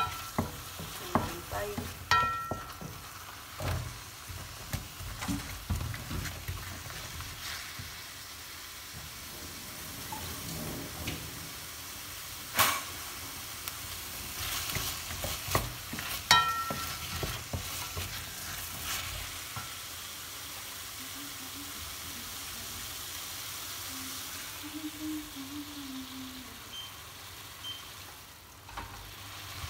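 Mushrooms and pineapple sizzling in a stainless steel frying pan, stirred with a wooden spatula that knocks and scrapes against the pan, with a couple of sharp ringing knocks on the metal. Celery sticks go in partway through and the sizzling and stirring carry on.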